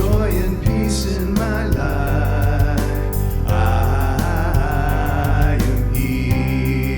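Gentle devotional song performed live: a wavering voice sung over a steady bass and light regular percussion.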